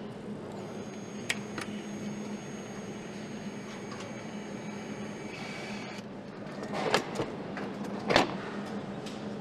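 Motorcycle assembly-line ambience: a steady machine hum with scattered clicks of parts and tools, and two louder clunks about a second apart near the end.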